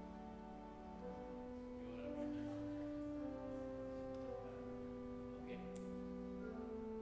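Slow instrumental offertory music of long held chords, the notes changing about once a second.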